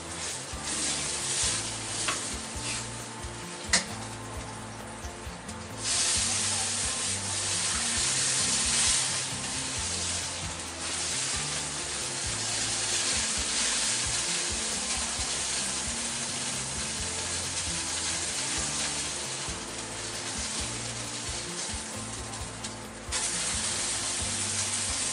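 Pork steaks sizzling hard in hot pork fat in a wok. The sizzle swells abruptly twice, about six seconds in and again near the end, and there is one sharp click about four seconds in.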